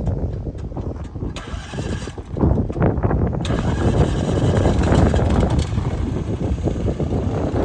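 Gravely Skidsteer 200 compact skid loader's engine starting: it catches about two seconds in, picks up about a second later and then runs steadily.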